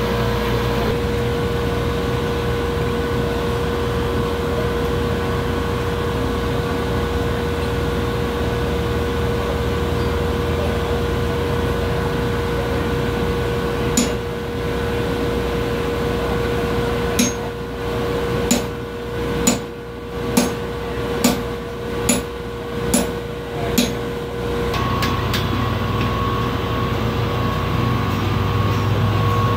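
Hammer blows on hot steel at the anvil while forging a railroad-spike cross: a single blow, then a run of about eight blows roughly one a second, each with a bright metallic ring. A steady drone runs underneath.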